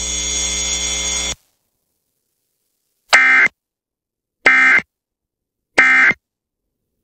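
Emergency Alert System end-of-message data tones: three short, identical, shrill digital bursts about a second and a half apart, marking the end of the alert. Before them a steady noise cuts off abruptly about a second and a half in.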